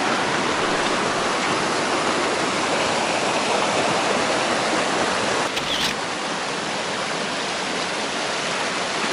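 Rushing forest creek tumbling over rocks: a steady wash of water noise. A brief break a little past halfway, after which it is slightly quieter.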